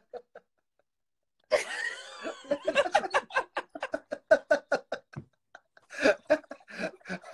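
After about a second and a half of silence, a man bursts into loud, hearty laughter in quick rhythmic bursts that carry on to the end.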